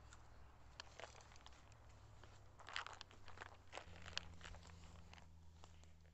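Near silence broken by faint scattered crackles and ticks, with a small cluster about three seconds in, over a low steady hum.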